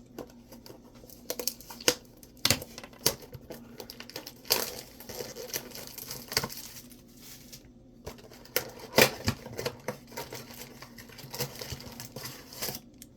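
Shrink-wrap and cellophane crinkling and tearing, with irregular clicks and rustles of cardboard being handled, as a box of trading-card packs is unwrapped and the packs are taken out.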